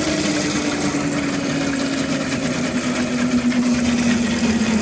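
Electric motor spinning two heavy flywheels, its steady whine sliding slowly and evenly down in pitch as it bogs under a 170 lb load that is too much for it.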